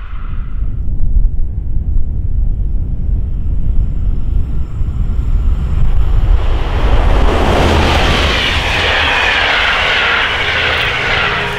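Fast train passing at speed through snow: a steady low rumble, with a rising hiss that builds from about halfway through, peaks near the end and slides down in pitch as it goes by.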